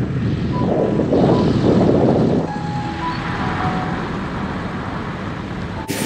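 Car driving: engine running with steady road and tyre rumble, heard at the open driver's window.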